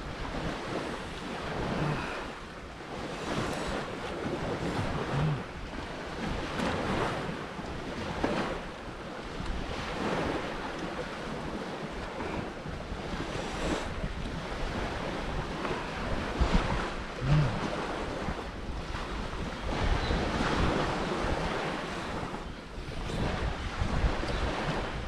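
Sea surf washing on a beach, swelling and easing every few seconds, with wind on the microphone.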